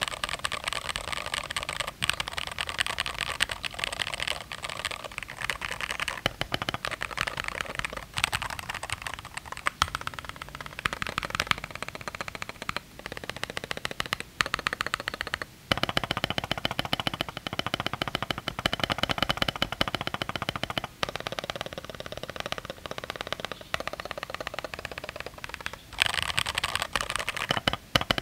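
Fast typing on a GMMK Pro mechanical keyboard with lubed Glorious Panda tactile switches and lubed stabilizers: a dense stream of keystrokes, broken by a few brief pauses.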